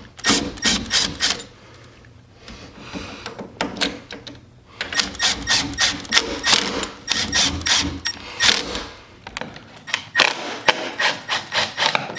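Screwdriver driving screws in and out of a door's ball catch: runs of rapid, evenly spaced clicks, several a second, with a quieter stretch of about three seconds near the start.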